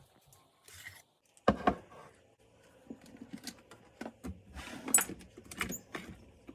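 Clicks, knocks and light clatter of small hard objects being handled, with two sharp knocks standing out, about one and a half seconds in and again about five seconds in.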